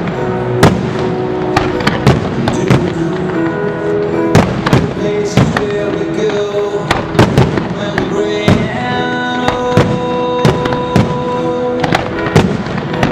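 Fireworks display: shells and comets launching and bursting as many sharp bangs, two or three a second, over a music soundtrack with held notes.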